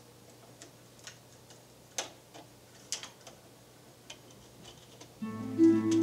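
Irregular light clicks and taps from hands handling a slim plastic case. About five seconds in, low sustained music starts and becomes the loudest sound.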